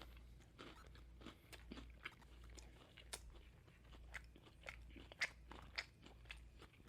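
Faint close-up chewing of a Popeyes spicy fried chicken sandwich: irregular small crunches and wet mouth clicks.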